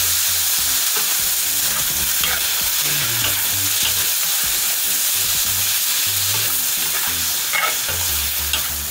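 Pig's intestine and bò khai greens sizzling in a hot wok, stirred with a metal spatula that scrapes and clicks against the pan now and then.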